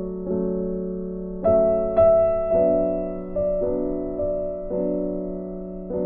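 Slow, calm piano background music: held chords with new notes struck about once a second, and two brighter, higher notes coming in about one and a half and two seconds in.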